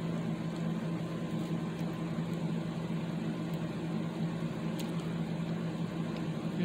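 Electric fan running with a steady hum.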